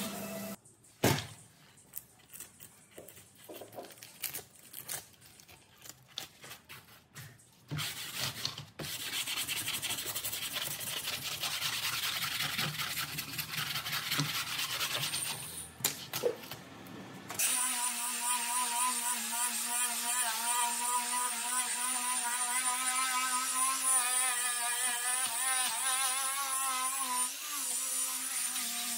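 Hand work on metal or plastic: a few scattered clicks and knocks, then several seconds of fast scraping or rubbing. About two-thirds of the way in, a small motor-driven tool starts and runs steadily, its pitch wavering slightly as it works.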